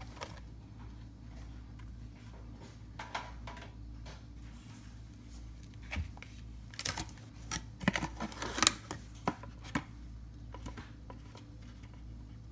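A few seconds of light clicks and rustles from handling things, starting about halfway through, over a steady low hum.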